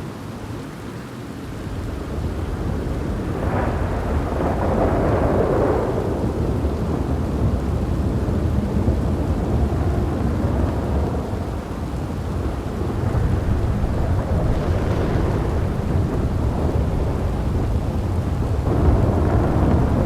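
Thunderstorm: steady rain with deep rolling thunder. The rumble builds about two seconds in, a louder crash of thunder comes a few seconds later, and more peals roll in near the middle and again near the end.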